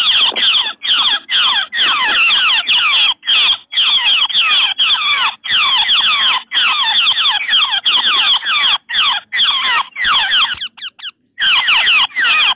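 Recorded babbler chatter played through a small portable speaker: a dense, continuous run of quick notes that slide down in pitch, overlapping one another. It is the lure call used to draw babblers to a trap. It drops out briefly about ten and a half seconds in.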